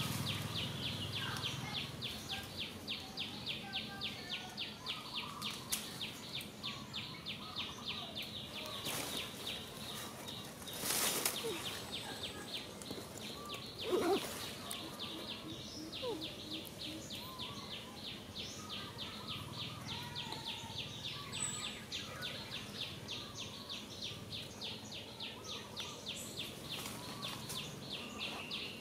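Insects chirping in a fast, even pulse over forest ambience, with scattered faint bird calls. A brief noisy burst comes about eleven seconds in, and a short, sharp rising call about fourteen seconds in.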